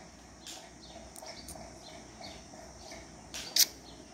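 Quiet background with faint, short, high chirps, and one brief sharp sound, much louder, near the end.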